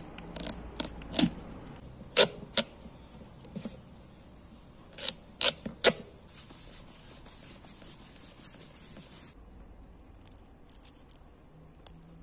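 Large kitchen knife cutting into a raw pumpkin on a wooden cutting board: a series of sharp cracks and knocks, about ten in the first six seconds, as the blade pushes through the hard rind and strikes the board.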